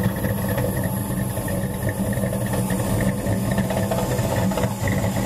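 1999 Dodge Ram's 5.9-litre V8 idling steadily through its Flowmaster exhaust, heard at the tailpipe while it warms up after a cold start.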